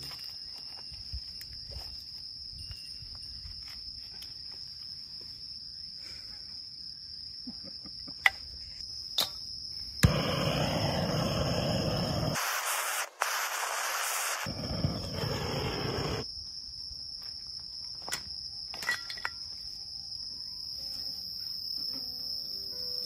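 Insects trill steadily in one high continuous tone. Midway, a hand-held butane gas torch hisses loudly for about six seconds while lighting kindling in a fire dish, after a few sharp clicks just before it starts.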